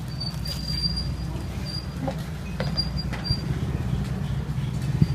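Street ambience dominated by a steady low engine rumble of nearby motor traffic, with a few short high-pitched chirps in the first few seconds and faint clicks.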